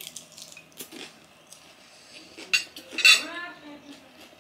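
Metal spoon and fork clinking and scraping against a ceramic plate while eating. There are several sharp clinks, the loudest about three seconds in, which rings briefly.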